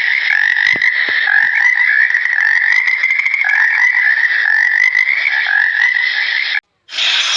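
A dense chorus of frogs calling, a continuous trilling held around one pitch, which stops suddenly near the end.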